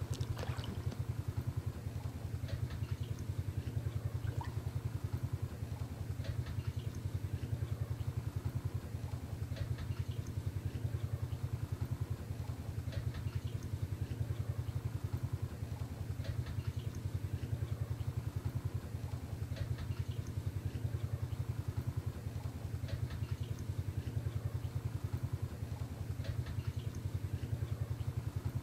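A small engine or motor running steadily at idle, a fast, even low pulse, with a few faint clicks over it.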